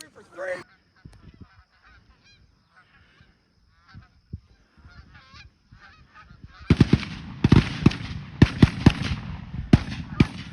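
Geese honking: scattered honks at first, then, from about seven seconds in, a loud, dense run of honking and clucking.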